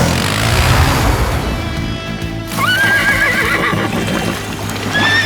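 Cartoon pony whinnying over background music: a wavering, quavering call about halfway through and another near the end, after a rushing noise in the first couple of seconds.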